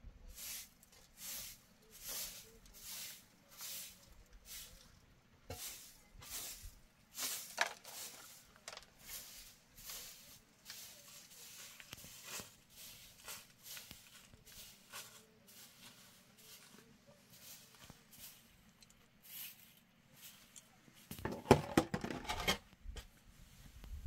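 Short bundled broom sweeping a dirt yard in regular strokes, a swish about every three-quarters of a second, growing fainter after about twelve seconds. Near the end comes a louder, rougher burst of scraping on the ground.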